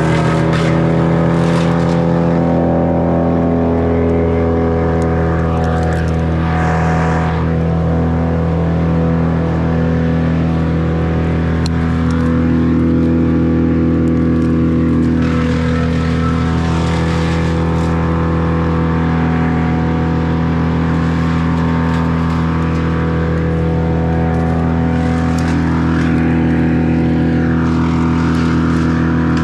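An engine running steadily at constant speed for the whole stretch, with small swells in loudness but no revving up or down.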